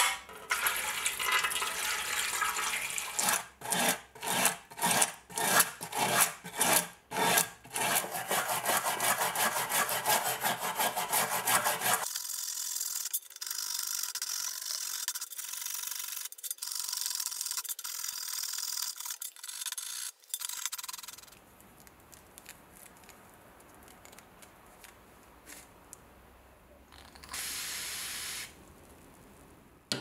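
A brush scrubbing a rusty antique knife blade in a soapy metal tray, in quick back-and-forth strokes: spaced at first, then faster and continuous. About two-thirds through it gets much quieter, with one more short burst of scrubbing near the end.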